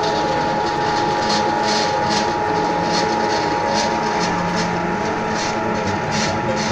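Plastic-bottle shredder machine running, with a steady high whine over a continuous mechanical rumble and irregular crackles as it chops plastic.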